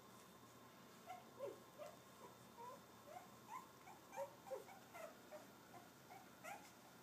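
Cavalier King Charles Spaniel puppies, three and a half weeks old, giving a quick string of short, faint, high squeaks and whimpers, starting about a second in and running on for several seconds.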